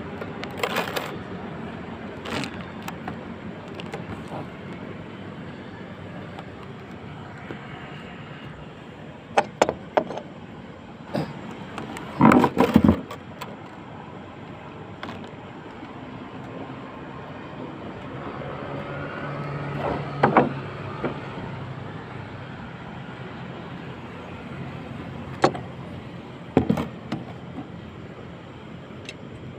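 Outdoor hum of distant traffic, with scattered clicks and knocks from a tube of construction adhesive and a caulking gun being handled on a concrete ledge; the loudest cluster of knocks comes about halfway through.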